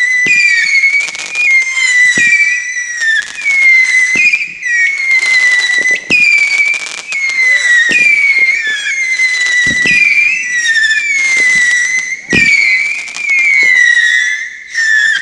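Whistling firework going off: a quick, unbroken run of shrill whistles, each one dipping slightly in pitch, with a few sharp cracks in among them.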